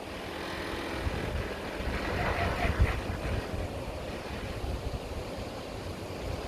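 A four-wheel-drive's engine running, with a rushing noise over it that swells about two to three seconds in.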